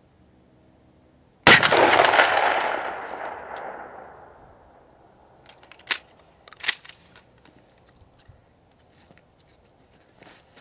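A single slug shot from a 12-gauge Mossberg 500A pump-action shotgun: a sudden loud blast about a second and a half in, with a long echo rolling away over the next two to three seconds. About four seconds later come two sharp clacks under a second apart, the pump being worked to chamber the next round.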